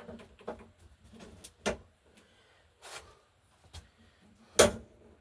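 Scattered knocks, clicks and clunks of tools and parts being handled and set down, with a short scrape about three seconds in and the loudest knock near the end.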